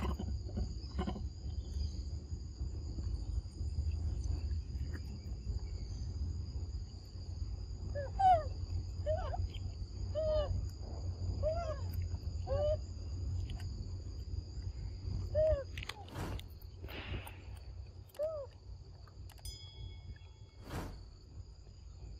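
Forest insects drone steadily at two high pitches over a low rumble. From about eight to sixteen seconds in, an animal gives a run of about ten short rising-and-falling calls. A couple of sharp clicks come near the end.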